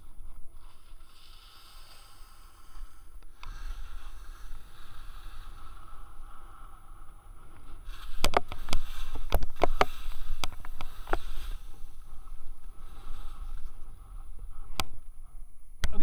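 Skis sliding and turning on snow, a steady hiss, with a quick run of sharp scrapes and clicks about halfway through that is the loudest part.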